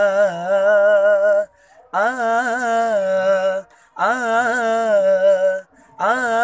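A man singing held vocal notes, four in a row with short breaths between, the pitch wavering and shaking inside each note: a ghazal-style vocal ornament exercise.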